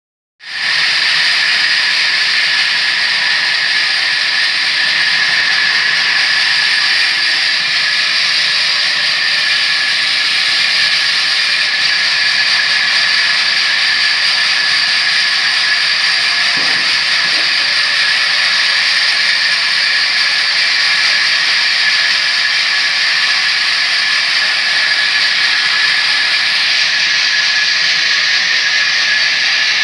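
Log band saw sawmill running and cutting lengthwise through a log, a loud, steady, high hissing saw noise that starts about half a second in.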